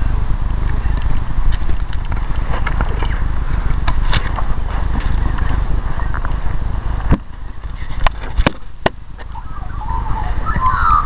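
Wind buffeting a handheld camera's microphone as a steady low rumble, with scattered clicks and knocks from handling as the camera is moved. The rumble drops back about seven seconds in, and a brief voice-like sound comes near the end.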